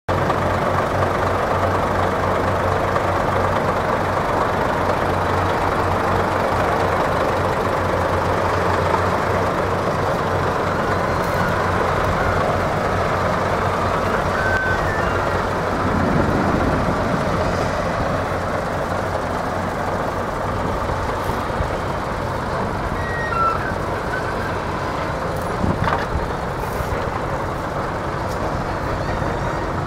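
Scania 94D.220 truck's five-cylinder diesel engine idling steadily.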